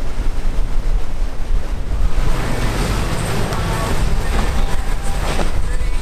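Wind buffeting the microphone over breaking waves and surf, with a louder rush of water from about two seconds in.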